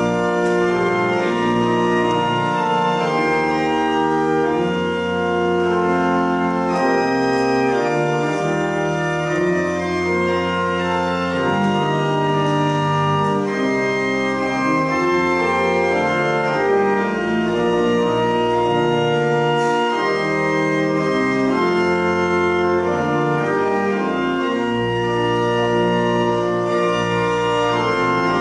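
Church organ playing slow, sustained chords that change about every second, at a steady volume.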